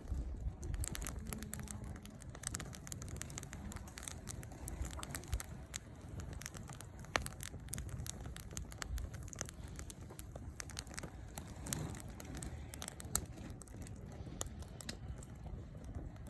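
Wood fire crackling, with scattered sharp pops, as freshly added firewood catches alight. A low rumble runs underneath.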